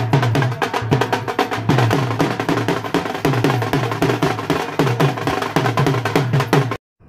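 Music with a fast, steady drum beat and repeating deep bass thuds, cutting off suddenly near the end.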